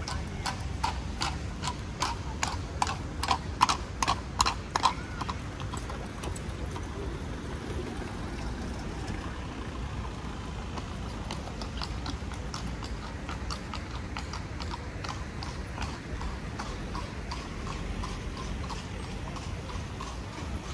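A carriage horse's hooves clip-clopping on paving in a steady beat of about three strikes a second. The hooves are loudest over the first five seconds, then fade to a fainter clip-clop over a low steady street hum.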